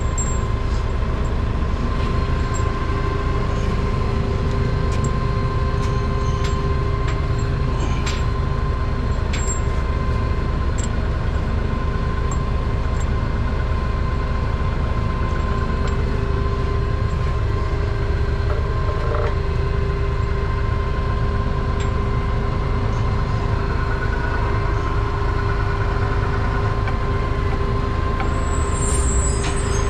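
A large engine runs steadily with a constant low drone and a steady whine over it, from heavy equipment or a truck in the shop.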